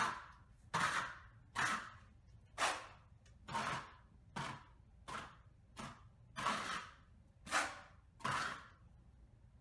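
Wide steel taping knife scraping across a drywall ceiling in short repeated strokes, about one a second, laying on and dragging skip trowel joint compound.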